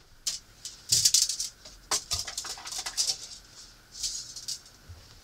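Irregular rustling and rattling of things being handled at a galley counter, with a few sharp clicks, loudest about a second in and again around three seconds.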